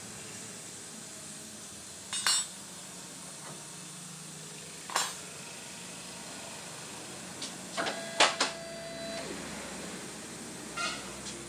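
Metal clanks and clinks as a car's rear coil spring is worked free and handled: separate knocks about two and five seconds in, a quick cluster near eight seconds with one hit ringing briefly, and another clink near the end, over a steady low hiss.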